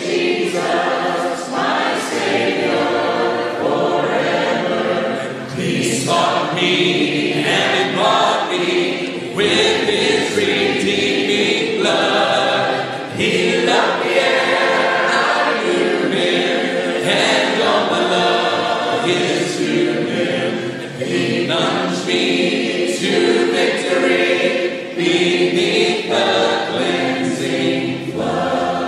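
A large congregation singing a hymn together, many voices in harmony, apparently unaccompanied, with brief dips in level between sung lines.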